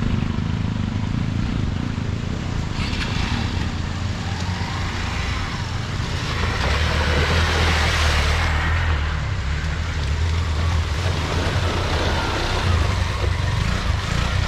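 Motorcycle running under way: a steady low engine note with road and wind noise, growing somewhat louder around the middle.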